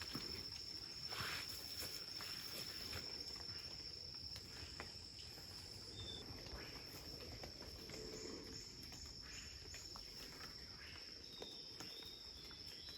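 Faint forest ambience: an insect's steady high-pitched trill that goes on without a break, with a few faint scattered clicks.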